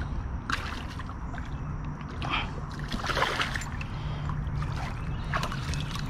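Water splashing in short bursts as a hooked catfish thrashes at the surface near the bank, over a steady low rumble.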